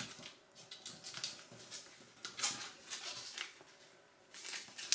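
A sheet of origami paper rustling and crinkling in irregular bursts as fingers squash-fold a pocket of the module flat, with louder crinkles about halfway through and near the end.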